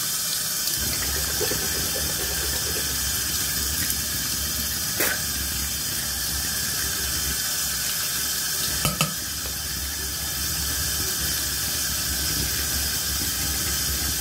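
Bathroom sink tap running in a steady stream, with two brief knocks, about five seconds in and again about four seconds later.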